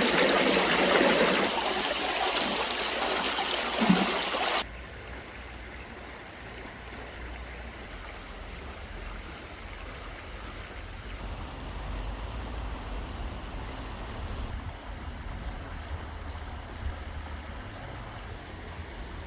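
Stream water rushing steadily. It cuts off suddenly about four and a half seconds in, leaving a faint low rumble.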